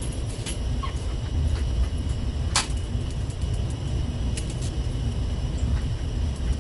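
Steady low rumble of a ship's engine and machinery carried through the cabin, with scattered light clicks and one sharp tick about two and a half seconds in as the metal rod sections and reel of the kit are handled.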